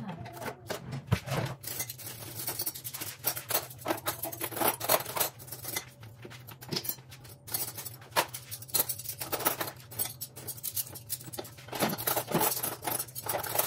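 Metal cutlery clinking and clattering as handfuls of utensils are sorted into a kitchen cutlery drawer, many quick irregular clinks.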